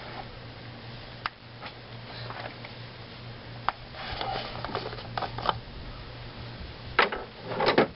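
Scattered light clicks and taps of hands handling parts in a car's engine bay, with a louder knock about seven seconds in, over a steady low hum.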